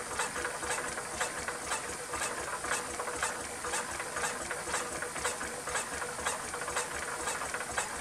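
Quarter-scale single-cylinder ploughing engine running on compressed air: a steady hiss with an even rhythm of light clicks and knocks from the engine and its winding-drum gearing, over a faint steady hum.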